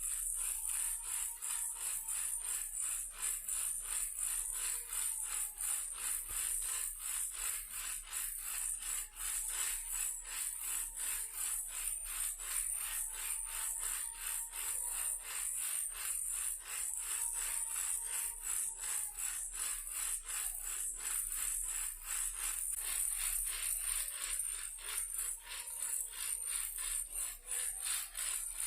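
Toy car shaken as a baby rattle, rattling in a fast, even rhythm of clicks with a bright, hissy edge.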